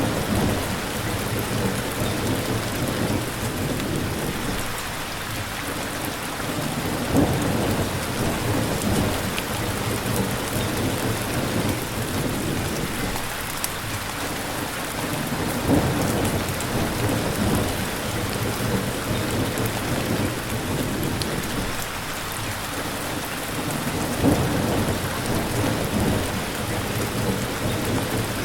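Steady rain falling, with low rumbles of thunder swelling up three times, about eight seconds apart.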